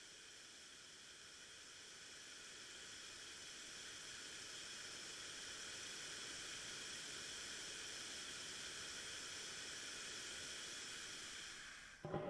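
Faint, steady high hiss with faint ringing tones through it, swelling slowly over the first half and cutting off sharply near the end: a film sound effect for a soldier's blast-deafened hearing.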